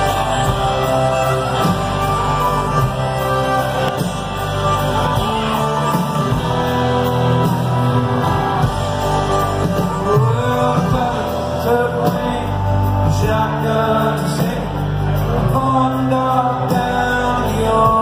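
Live country band playing with fiddle, acoustic guitar, electric bass and drums.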